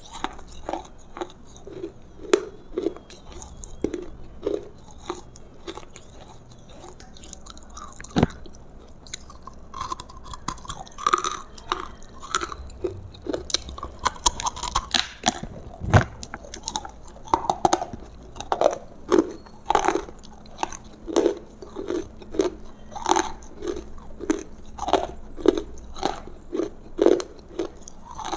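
A person chewing and biting food close to the microphone, with crisp, crunchy clicks. Sharp single bites come twice, and in the second half the chewing settles into a steady rhythm of about two chews a second.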